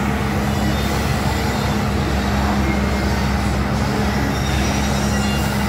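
Kiddie helicopter carousel ride running, its drive machinery giving a steady low drone with a constant hum that does not change as the ride spins.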